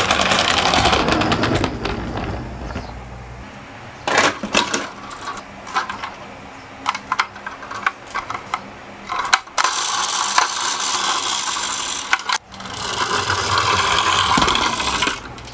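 Die-cast toy minicars rolling down a slope, with a steady rattling roll near the start and again for a few seconds at a time from about ten seconds in. In between come scattered sharp clicks and clacks of small hard toys being handled or knocking together.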